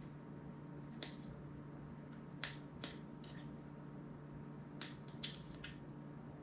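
Small hand tools and metal parts of an Asus Zenfone being disassembled, giving about seven faint, sharp clicks at uneven intervals over a low steady hum.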